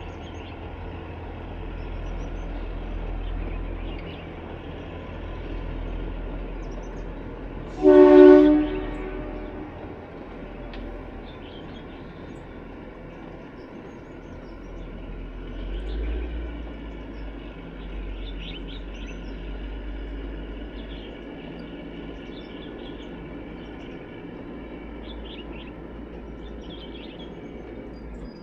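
Kalka–Shimla narrow-gauge toy train running with a steady low rumble, giving one short horn blast about eight seconds in. Birds chirp faintly in the background.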